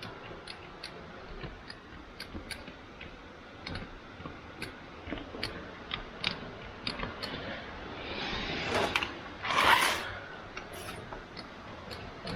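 Scattered light clicks and knocks from hands working in a car's interior, with a louder rustling scrape about eight to ten seconds in.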